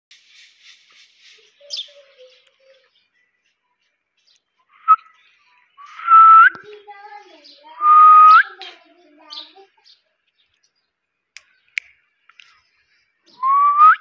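Indian ringneck parakeet whistling: three loud whistles, each held level and then swept upward at the end, with faint quick chirps at the start and soft low chatter between the whistles.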